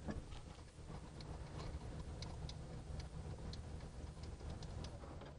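Faint, scattered light metallic ticks, a few a second, as the factory nut and charge-wire terminal are worked off a car alternator's positive stud by hand. A low steady hum lies underneath.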